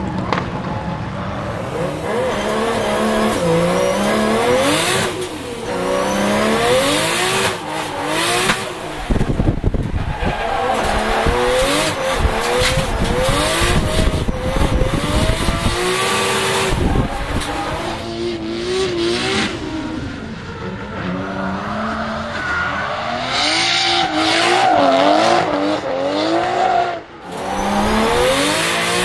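Nissan Skyline R33's turbocharged RB25 straight-six, heard from inside the cabin, revving up and down in quick swings through a drift, with tyres squealing. Near the end the engine briefly drops away before pulling again.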